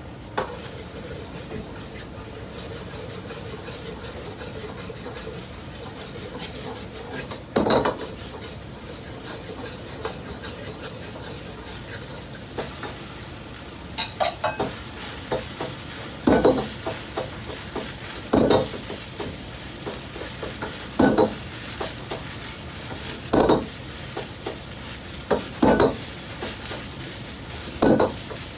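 Fried rice sizzling in a wok while a metal ladle stirs and tosses it. The ladle clangs sharply against the wok about eight seconds in, then every two seconds or so from about fourteen seconds on.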